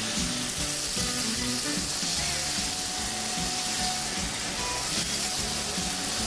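Sauce with nuts sizzling in a steel frying pan over a gas flame, a steady hiss, with background music underneath.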